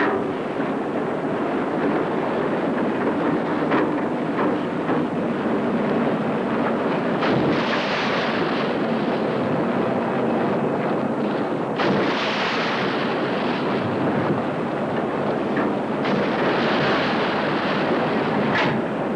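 Loud, steady roar of wind and rough sea, with three rushing surges of breaking waves.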